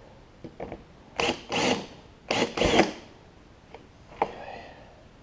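Cordless drill pulsed in short bursts, four quick spins in two pairs about a second apart, with light clicks around them: the bit just barely marks starter dimples for screws in the plastic cooler lid through the panel's grommets.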